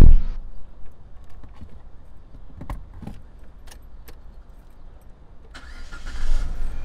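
A car door thuds shut, then car keys jangle and click a few times in the driver's hand. About five and a half seconds in the engine is cranked and started, leaving a low steady rumble.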